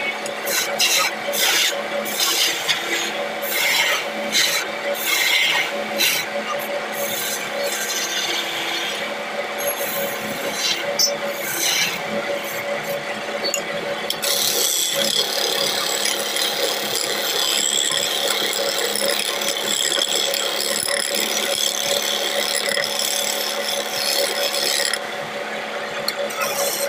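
Wood lathe running with a steady hum while a hand-held turning chisel scrapes and cuts a spinning wooden bed leg. The rasping cut comes in short strokes for the first half, then runs on as one continuous scrape for about ten seconds and stops shortly before the end.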